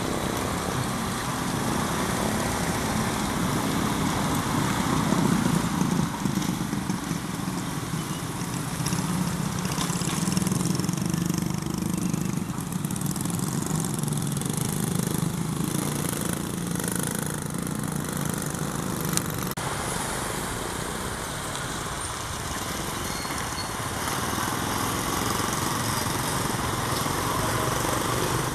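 Diesel locomotive engine idling with a steady low hum, joined by a small motorcycle engine passing.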